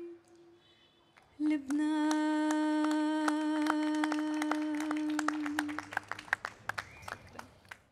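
A woman's voice ends a long held sung note that fades away. After a second's pause she holds another long low note while a few people clap. The clapping goes on for a couple of seconds after the note stops and thins out near the end.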